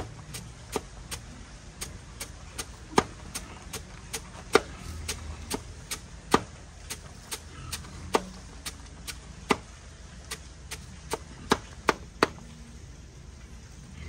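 A series of sharp, irregular knocks, roughly two a second, some much louder than others.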